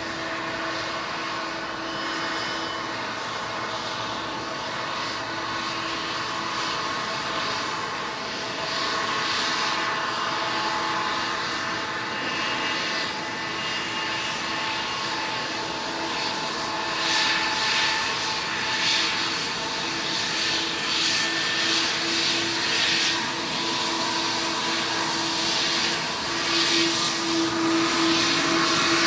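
Jet engines of a Boeing 777-200ER airliner running at takeoff: a steady whine over a rushing noise that grows gradually louder.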